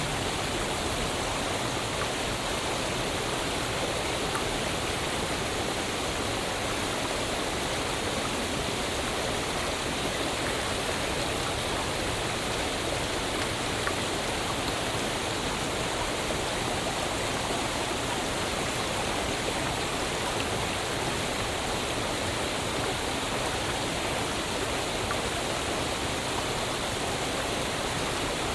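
Waterfall: steady rushing of falling water, an even unbroken wash of noise with no changes.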